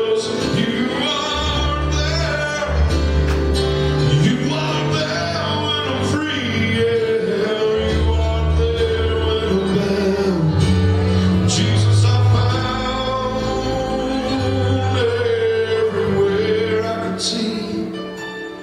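Gospel song performed live: a band plays, with held notes over a bass line, and a man sings.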